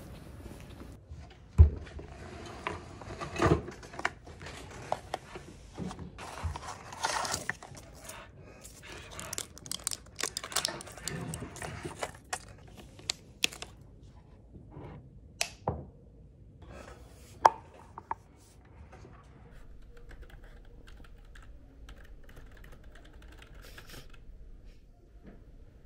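Small handling sounds at a desk: scattered taps, clicks and paper rustling, with a few sharper knocks, thinning out after about eighteen seconds.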